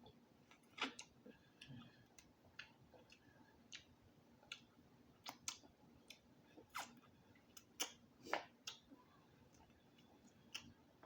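Faint, close-up chewing of a seafood boil and fufu: irregular wet mouth clicks and smacks, a few of them louder, about a second in and again around seven and eight seconds.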